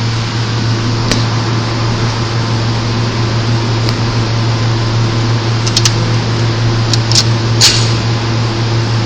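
Steady fan or ventilation hum with a low drone, broken by a few brief sharp clicks: one about a second in and a small cluster between about six and eight seconds in.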